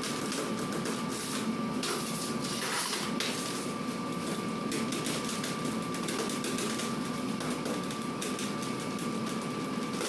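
Steady running of bakery machinery with a constant high whine, with irregular light clicks and knocks throughout.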